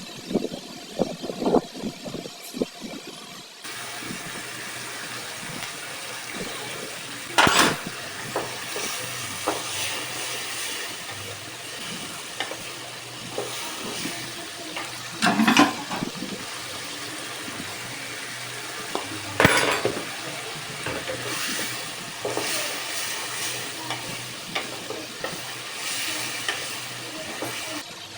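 Chickpeas frying in hot oil in a pan: a steady sizzle that sets in about four seconds in, with a spoon knocking and scraping against the pan three times and smaller clicks of stirring between.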